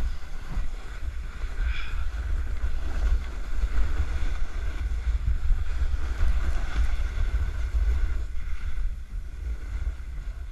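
Wind buffeting the action camera's microphone with a heavy low rumble, over the scraping hiss of a snowboard sliding and carving on hardpack snow. The noise eases slightly about eight seconds in.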